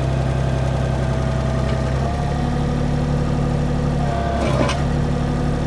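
Diesel engine of a compact construction machine running steadily under a hydraulic whine, its hum shifting in pitch about two seconds in. A brief sharp clatter comes about four and a half seconds in.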